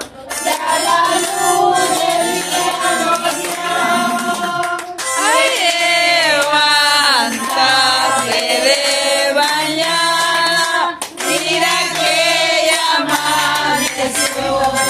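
A group of people singing a birthday song together, clapping their hands along.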